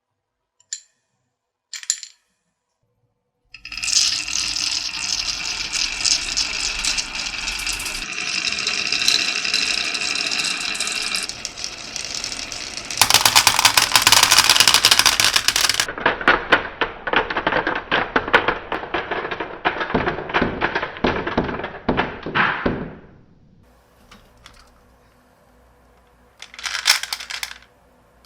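Marbles rolling and clattering down a marble run. A couple of single clicks come first, then a long stretch of dense rattling and clicking, loudest in the middle, that dies away a few seconds before a short final clatter.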